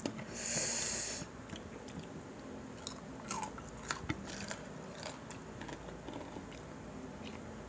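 Close-up eating sounds of crispy pata (deep-fried pork knuckle) and rice: a short crunchy rustle about half a second in, then chewing with scattered small mouth clicks.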